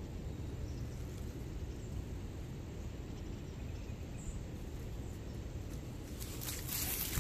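Steady low outdoor rumble; about six seconds in, dry fallen leaves and brush crackle and rustle in quick bursts as a leashed cat pounces into the undergrowth.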